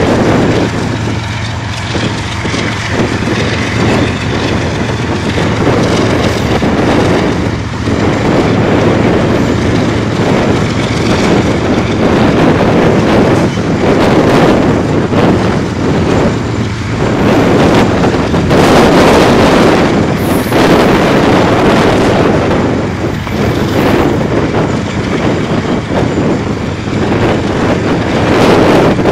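Diesel freight locomotives pulling a freight train past: a steady low engine drone under the rumble of wheels on the rails.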